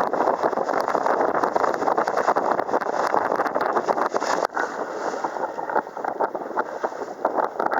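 Strong wind buffeting the microphone together with the rush and splash of water around a sailing dinghy sailing close-hauled, a dense crackling noise that briefly drops about halfway through.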